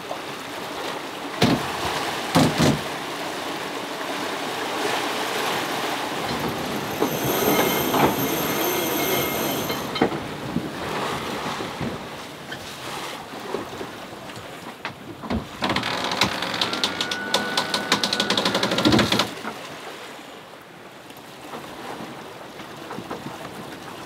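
Sailing yacht coming about: steady rushing wind and water throughout. There is a high squeal partway through and a run of rapid clicking near the end, as a sheet winch is worked to trim the sails onto the new tack.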